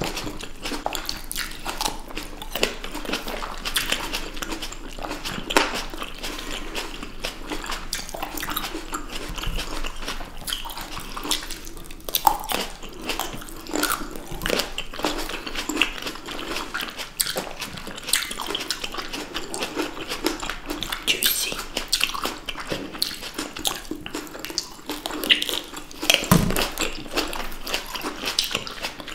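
Two people biting into and chewing sweet red grapes close to the microphone, ASMR-style, as a dense, irregular run of short clicks.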